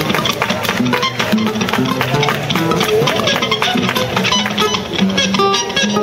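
Live music: plucked strings, tagged as guitar, playing short notes over a dense run of percussive taps.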